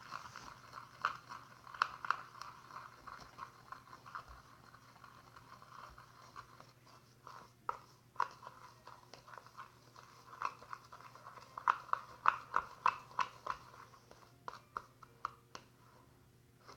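A utensil stirring and scraping a damp flour-and-toothpaste dough in a bowl: irregular scrapes and taps, with a run of quicker strokes around twelve seconds in.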